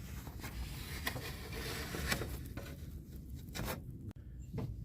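Socket wrench working on the alternator's E14 Torx mounting bolts: a run of ratcheting and metal scraping, then a few separate clicks and knocks.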